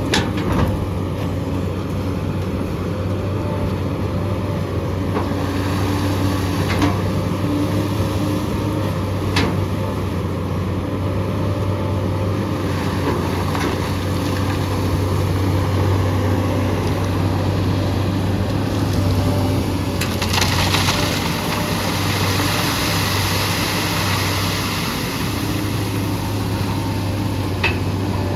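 SANY SY215 excavator's diesel engine running steadily under load, with a few sharp knocks and a stretch of rushing hiss about two-thirds of the way through as it works gravel.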